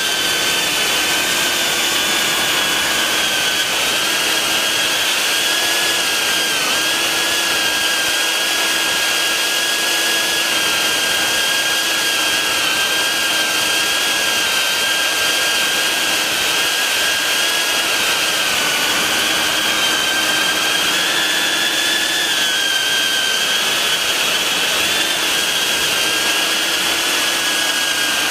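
BetaFPV 95X V3 FPV quadcopter's brushless motors and propellers whining in flight, a steady high whine with a hiss of prop wash, its pitch wavering slightly as the throttle shifts.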